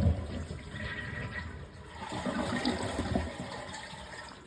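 Toilet flushing with its supply valve shut off, so the tank empties without refilling: a rush of draining water that fades out near the end.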